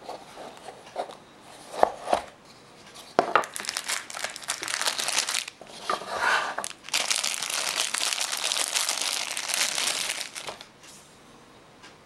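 Clear plastic bag crinkling and rustling as a folding knife is unwrapped from it, most heavily in the second half and stopping about two seconds before the end. Before that come a few sharp knocks and scrapes of a small cardboard box being handled and opened.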